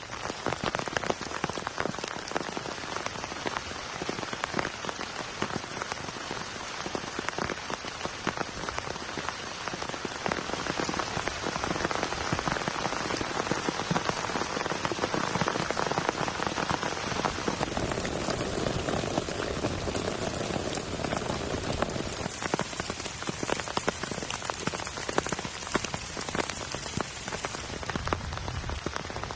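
Heavy rain falling steadily: a dense, even patter of drops striking surfaces.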